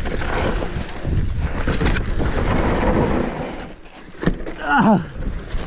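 Wind buffeting the microphone and mountain bike tyres rolling fast over a dirt trail, with rattles and knocks. About four seconds in it drops briefly, then a knock and a short tone that slides down in pitch.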